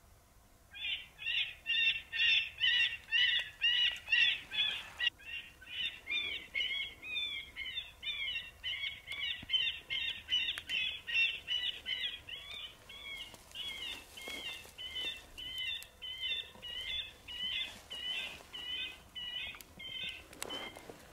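Predator call sounding a prey distress cry: rapid high squealing notes, about three a second, going on almost without a break from about a second in.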